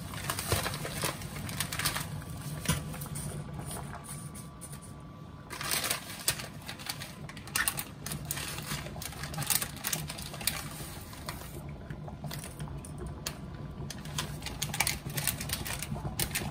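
Water at a rolling boil in a stainless steel pot on an induction hob: a dense, continuous bubbling and popping over a steady low hum. It gets louder for a moment about five and a half seconds in, as a bundle of dry noodles goes into the water.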